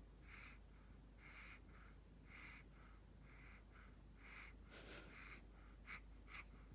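Faint, steady breathing close to the microphone, about one breath a second, each breath a louder puff followed by a softer one. About five seconds in comes a fuller rustle, then two small clicks.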